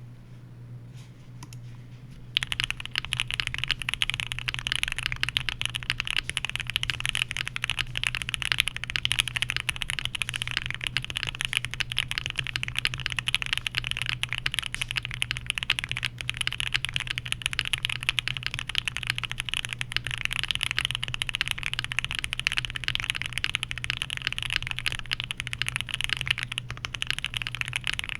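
Fast, continuous typing on an ai03 Vega mechanical keyboard with lubed Gateron Oil King linear switches, a POM plate and GMK keycaps, starting about two seconds in. A low steady hum runs underneath.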